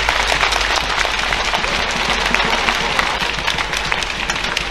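Badminton arena crowd applauding at the end of a rally, many hands clapping at once in a steady, dense patter.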